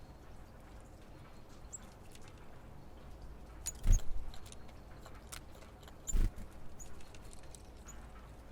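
Great tits at a feeder: light taps and clicks, with two loud knocks about four and six seconds in, and a few very short high call notes.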